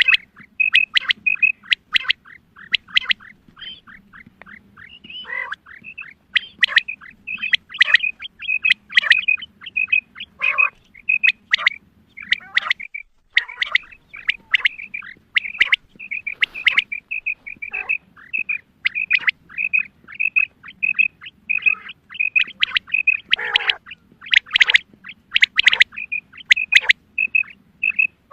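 Female quail calling: quick runs of short, high chirping notes, about four or five a second, broken by louder, sharper calls. This is the female call that hunters play to lure quail.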